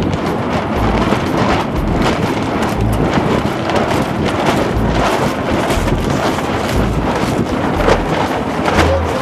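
Strong wind buffeting the microphone on the deck of a sailing yacht, a continuous loud rush with irregular low thumps from the gusts.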